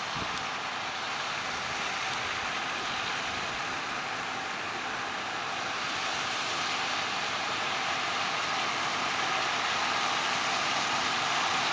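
Combine harvester running steadily at work, an even rush of machinery noise that grows slowly a little louder.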